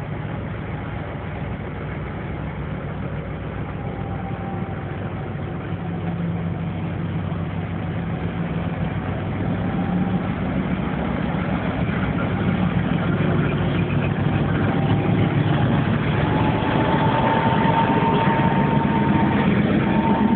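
ST44 (M62) diesel-electric locomotive's two-stroke V12 diesel engine running under load as it pulls a heavy freight train away and passes close by, growing steadily louder. A thin whine above the engine strengthens near the end.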